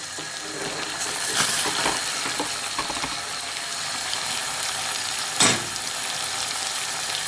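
Pumpkin, carrot and onion pieces frying in a stainless steel pot: a steady sizzle, with a wooden spoon stirring the vegetables and a single knock about five and a half seconds in.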